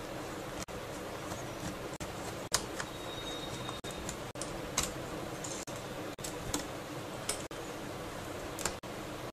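Scattered light clicks and ticks of small screws and a screwdriver being worked on a laptop's plastic screen assembly, over a steady background hiss.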